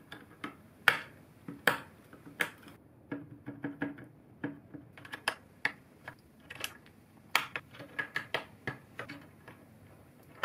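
Keycaps being pressed down onto the linear cream switches of a bamboo-cased 60% mechanical keyboard: a long run of sharp, irregular clicks and taps.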